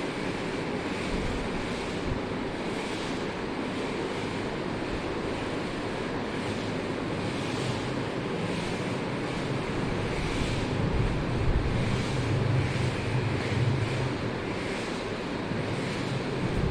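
Steady rushing noise of wind on the microphone, with a low rumble that swells in the middle and then eases.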